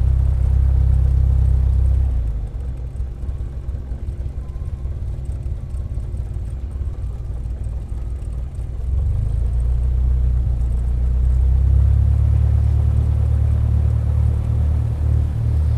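Aircraft engine running as a deep, steady rumble. It eases off about two seconds in and builds back up from about nine seconds.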